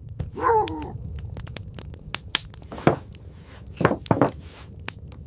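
A wolf pup gives one short whine, followed by scattered crunching and clicking sounds, with a few louder crunches about three and four seconds in.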